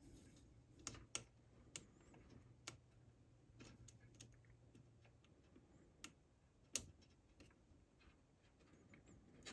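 Faint, scattered small clicks and ticks of a red wire and a small plug-in terminal block being handled and fastened. A faint low hum stops about five seconds in.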